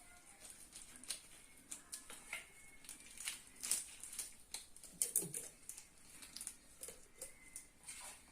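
Faint, scattered clicks and taps of hand work: garlic-stuffed dried figs being laid into a jar.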